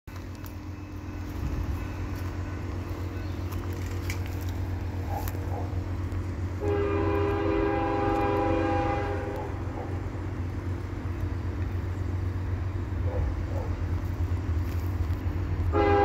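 CSX freight locomotive's air horn on an approaching train. It sounds one long chord of several tones about seven seconds in, held for about two and a half seconds, and a second blast starts just before the end. Under it runs a low rumble from the locomotive that slowly grows louder.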